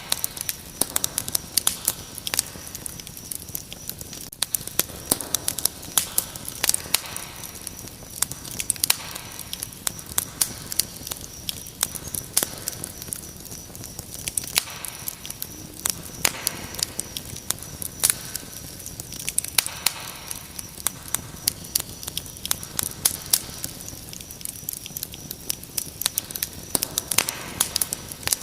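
Wood fire crackling with frequent sharp pops, over crickets chirping in a steady high, fast-pulsing trill.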